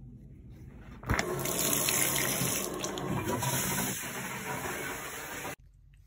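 Shower turned on about a second in, its water spray rushing steadily, then stopping abruptly near the end.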